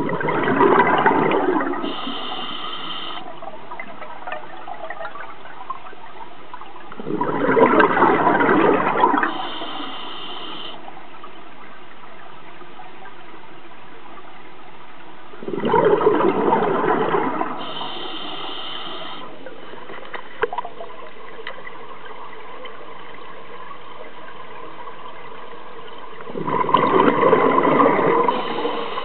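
Scuba diver's regulator breathing underwater: four exhalations, each a gush of bubbles about two seconds long, coming roughly every nine seconds, with a short high whine from the regulator shortly after each.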